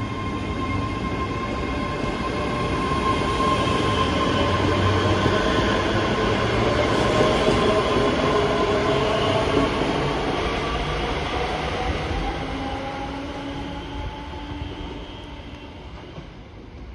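ScotRail Class 385 electric multiple unit pulling away from the platform, its electric traction motors whining in several tones that shift in pitch over the rumble of wheels on rail. The sound grows louder as the coaches pass, then fades over the last few seconds as the train draws away.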